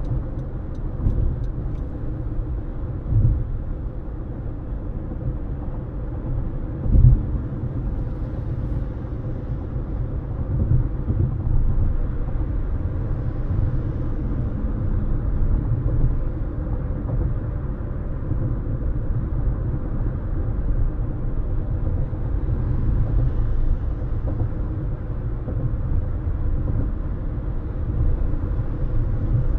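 Steady low road rumble of a car driving, heard from inside the car, with a brief thump about seven seconds in and a smaller one a few seconds earlier.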